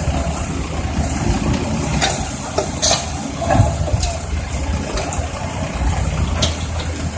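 Tracked excavator's diesel engine running steadily, with a few short knocks scattered through.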